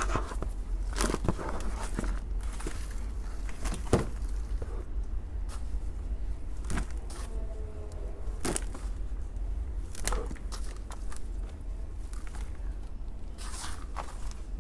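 Potting soil being dug and scooped out of a garden container: irregular scrapes and crunchy crackles every second or two, over a steady low rumble.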